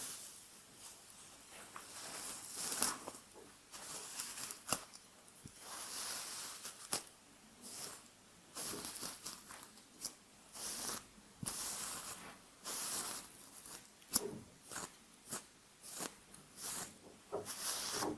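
A hairbrush pulled through hair close to the microphone in repeated short, crackly strokes about once a second, with a few sharp clicks between strokes.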